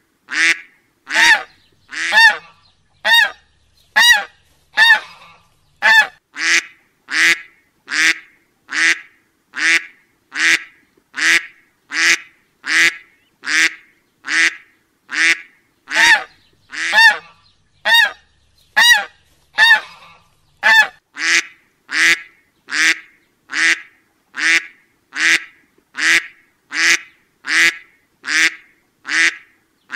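A honking waterfowl call repeated at an even pace, slightly more than once a second, each call short and fading out.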